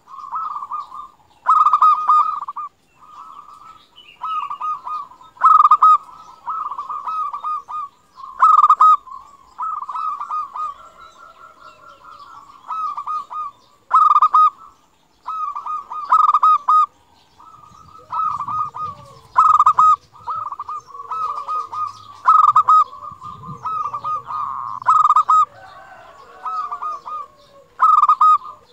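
Local zebra dove (perkutut) singing: its rolling, cooing song repeated every two to three seconds, each phrase opening with a loud note.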